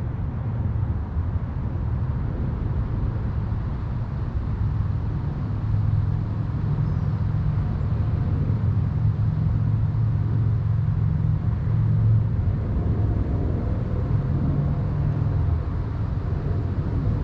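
FPV quadcopter in flight, heard as a steady low rumble that gets a little louder about six seconds in.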